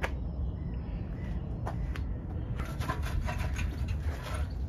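A cloth rubbing and wiping over a motorcycle's metal engine casings: a few clicks, then a run of short scuffing strokes from about halfway in, over a steady low rumble.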